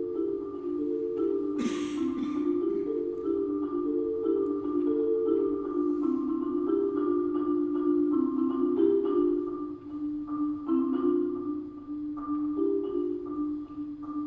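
Korogi concert marimba played with four mallets: slow rolled chords in the instrument's lower-middle register, the notes held and shifting gently from chord to chord.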